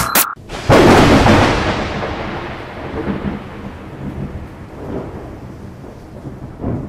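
Thunder sound effect: a sudden loud crack that rolls on as a long rumble, fading away over several seconds with a few smaller swells of rumble near the end.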